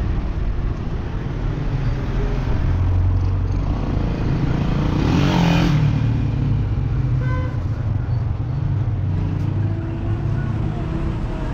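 Motor vehicle engine running with steady low road rumble, the noise swelling louder about five to six seconds in.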